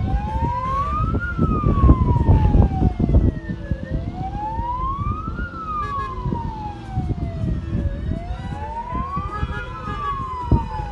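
A wailing siren rising and falling slowly, a full up-and-down cycle about every four seconds, three times over, above a heavy, uneven low rumble.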